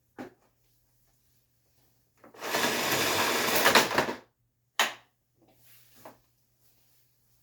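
Power cord of a Hoover Elite Rewind upright vacuum reeling back in on its automatic rewind, a rattling whir lasting about two seconds that stops abruptly, with a few handling knocks before and after.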